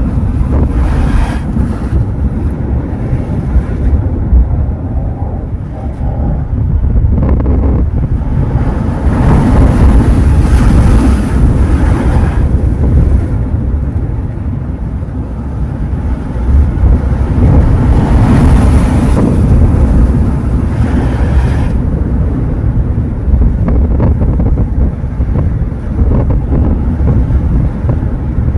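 Sea waves breaking on the shore, the rush of surf swelling up and falling away: a short surge near the start and two long ones about a third and two thirds of the way through. Wind buffets the microphone with a constant low rumble.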